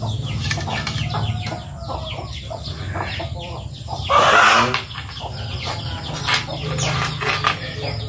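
Birds calling in a run of short, repeated calls, with one louder, harsher call about halfway through, over a steady low hum.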